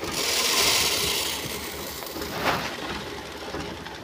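Treated maize seed pouring from a bag into the plastic seed box of a maize planter: a grainy rushing hiss, loudest in the first second and a half, with a short rattle about two and a half seconds in.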